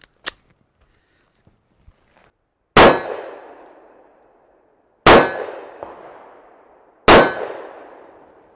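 Three shots from a Sig Sauer P365 SAS 9mm micro-compact pistol firing 115-grain jacketed hollow points, a couple of seconds apart. Each shot rings away over about a second and a half.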